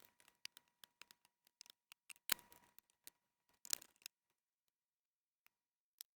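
Faint, scattered clicks and light taps of small tools and parts being handled inside an opened MacBook Pro, with a sharper click a little past two seconds and a short cluster of taps near four seconds, then near silence apart from one last click near the end.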